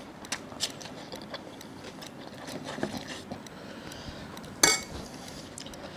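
Eating by hand: soft clicks and rubbing as flatbread is torn and scooped through curry on a ceramic plate. About four and a half seconds in there is one louder short clink.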